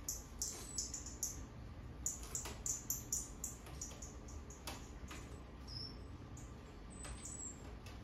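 Small songbirds chirping in quick runs of short, high notes, played from a bird video over a speaker, with a few single notes and a brief whistle later on. A steady low hum runs underneath.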